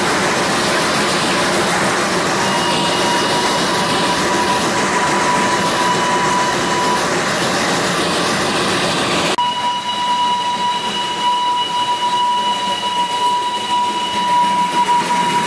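Darjeeling Himalayan Railway B-class narrow-gauge steam locomotive running, with a dense hiss of steam and the train's rattle, and a steady high-pitched ringing tone held for several seconds at a time. About two-thirds through, the dense hiss gives way abruptly to a quieter run while the high tone carries on.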